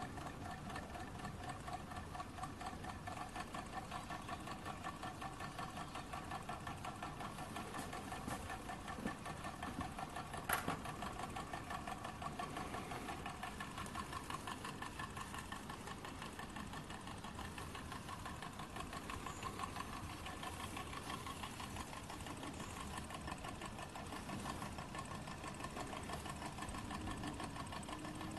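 A small STARPOWER QX6 hot-air Stirling engine running steadily, its pistons and flywheel making a quick, even ticking clatter. A single knock sounds about ten seconds in.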